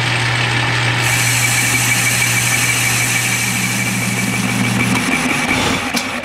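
Metal lathe running, a steady motor hum with a high tone, while the tool takes the final turning pass on the diameter of a cast cylinder head. A brighter cutting hiss comes in about a second in. Near the end the motor hum stops and the spindle runs down, with a sharp click.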